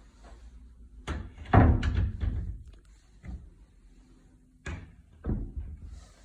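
A run of knocks and bumps from something being handled. The loudest comes about a second and a half in, within a cluster, and two more come about half a second apart near the end.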